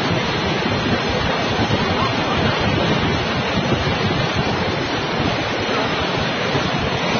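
Steady rushing of the floodwaters of the swollen Beas River.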